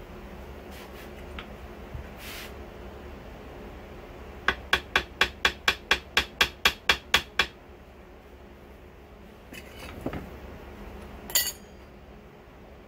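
A hammer taps about a dozen quick strokes, about four a second, on the water pump plate of an outboard lower unit. A single sharp metallic clink follows near the end.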